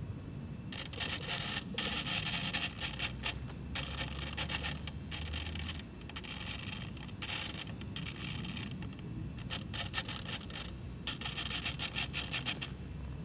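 Sail servos of an RC model Dragon sailboat running in a series of short bursts that start and stop repeatedly with brief pauses, working the jib and main sheets together through a transmitter mixer.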